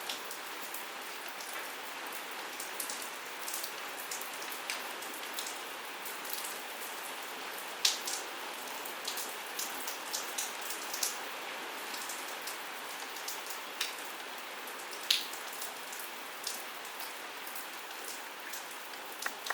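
Steady rain falling: an even hiss with many close raindrops ticking on a surface, two louder drop hits about eight and fifteen seconds in.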